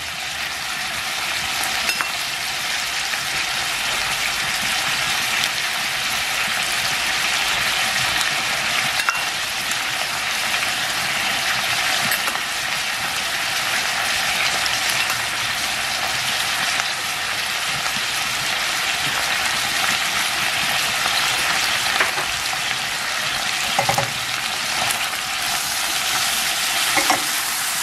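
Onion, garlic and tomatoes sizzling in hot vegetable oil in a stainless steel pan: a steady frying hiss. A few light clicks of the spatula against the pan come through it.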